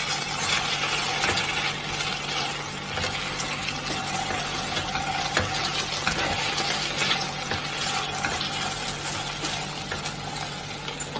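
Taro root (arbi) strips sizzling in oil in a nonstick pan while being stirred with a slotted spatula to mix in ground spices, with small scraping clicks all through.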